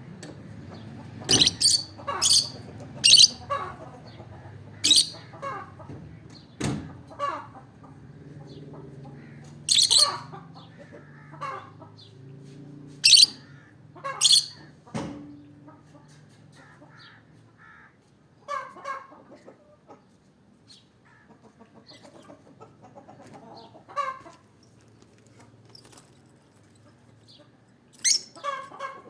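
Peach-faced lovebird giving loud, shrill chirps in short bouts, with softer chattering between them. Two sharp knocks sound, about seven and fifteen seconds in.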